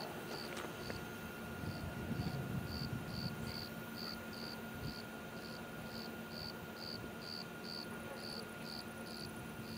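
Crickets chirping in a steady, even rhythm, about three short high chirps a second, over a faint steady hum.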